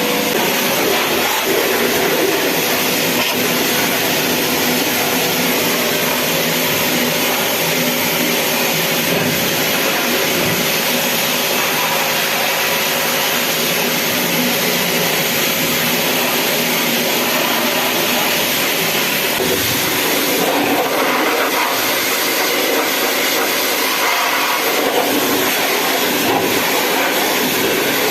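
Steady, loud rushing roar of running machinery, even in level throughout, with a slight change in its texture about twenty seconds in.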